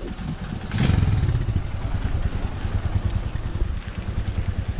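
Motorcycle engine running while riding, with wind rushing over the microphone; the sound swells briefly about a second in.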